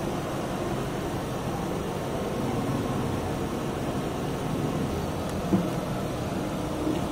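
Steady low background hum, with a single short knock about five and a half seconds in.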